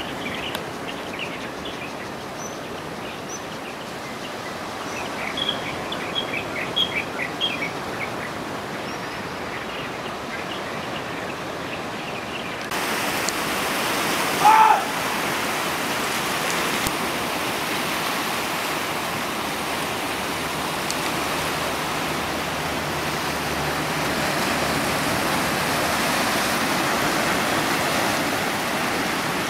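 Steady rush of sea surf washing on a rocky shore, with a bird chirping a quick run of short notes about five to eight seconds in. About thirteen seconds in, the rushing abruptly gets louder and fuller and stays that way, and a second later there is one short, loud rising whistle-like call.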